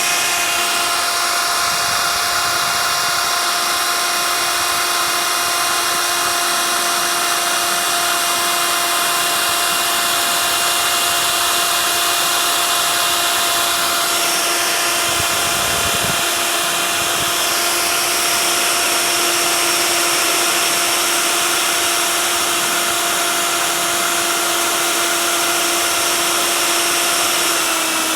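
CNC router spindle running with a steady whine while milling expanded PVC sheet, its pitch dipping slightly near the end.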